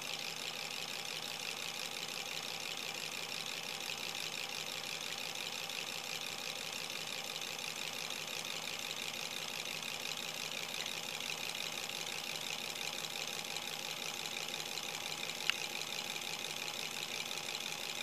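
Six-cylinder boxer-layout model Stirling engine running at a steady speed, a fast, even mechanical whir of its crank and linkages. One sharp click sounds near the end.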